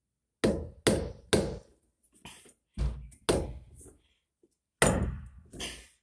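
A run of sharp knocks and thuds, three quick ones and then several more spread out, as a PVC tank connector is worked with a pipe wrench against the side of a plastic water tank.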